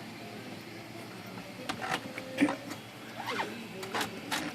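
Irregular light clicks and small metallic knocks of a Smith Corona Classic 12 typewriter's sheet-metal frame being worked loose by hand.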